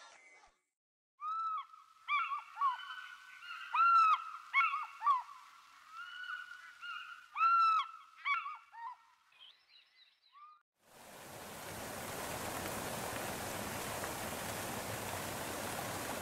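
A string of short honking animal calls, each rising and falling in pitch, several overlapping, for about nine seconds. About eleven seconds in, the steady rush of a waterfall takes over.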